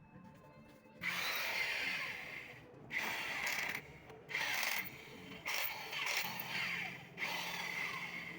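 Power tool run in about six short bursts of one to two seconds each, with brief pauses between them.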